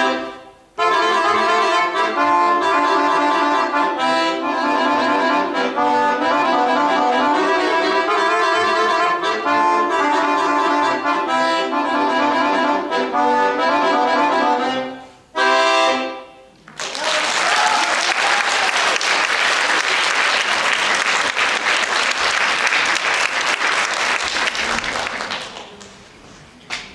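Accordion playing sustained chords and a melody, ending on a final chord about sixteen seconds in, followed by about eight seconds of applause that fades away.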